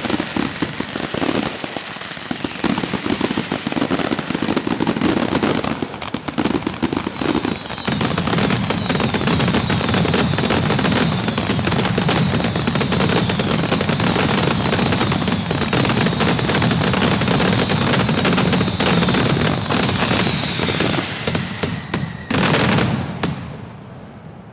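Fireworks barrage: a dense, unbroken run of crackling and rapid-fire bangs, with a string of short falling whistles through the middle. It ends in one last loud burst about 22 seconds in, then the noise falls away.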